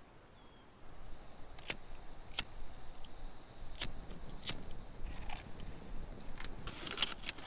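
Small metal clinks and foil crinkling as a camping gas stove is handled and set up, over low wind rumble that picks up about a second in. A thin, steady high whistle runs alongside from about a second in until near the end.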